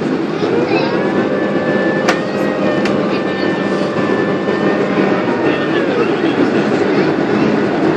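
Boeing 767 jet engines running over a heavy rumble. A steady engine whine rises about half a second in, holds, and falls away at about six seconds. There are two sharp clicks near the second and third seconds.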